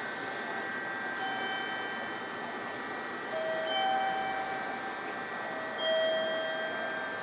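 A few slow, held chime notes forming a simple melody, the loudest about four and six seconds in, over the steady hum and high whine of an electric train standing at the platform.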